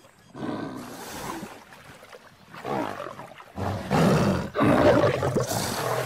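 Male lion roaring in several short bursts, the loudest from about four seconds in.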